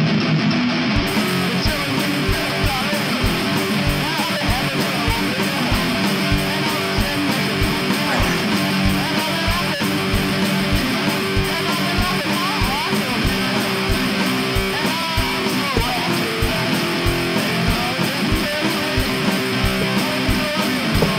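Fast rock song playing, with strummed electric guitars, a steady quick drum beat and a singing voice.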